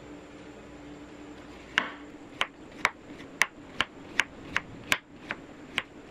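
Chef's knife chopping a raw carrot on a wooden cutting board, the blade knocking the board about two and a half times a second, starting about two seconds in.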